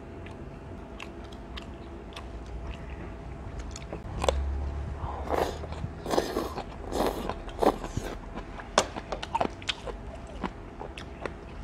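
A person eating close to the microphone: chewing with wet, smacking clicks throughout, and a run of loud slurps about five to eight seconds in as a strand of food is sucked in off chopsticks.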